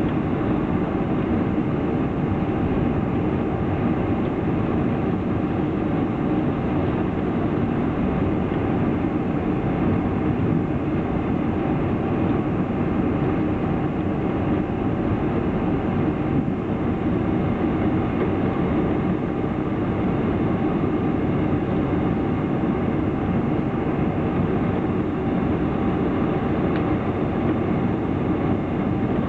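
Steady cabin noise inside a four-engined Boeing 747 taxiing, its engines at idle: an even rumble and hiss with faint steady tones running under it.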